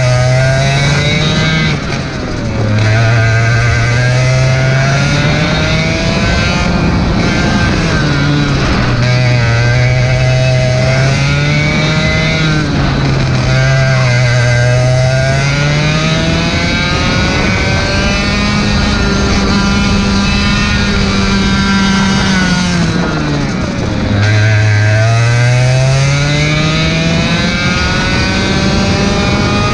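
Racing kart engine revving hard on a lap, heard on board: its pitch climbs steadily down each straight and drops sharply when the driver lifts for a corner, several times over.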